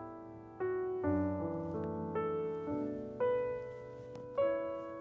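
Background piano music: slow, gentle notes and chords struck about once a second, each dying away before the next.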